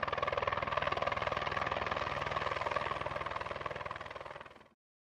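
Helicopter rotor chopping with a fast, even beat, fading and then cutting off about four and a half seconds in.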